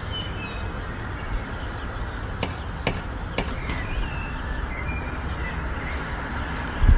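A cat rattling a metal door knocker on a front door: three sharp metallic knocks about half a second apart, over steady background noise. A dull low thump comes near the end.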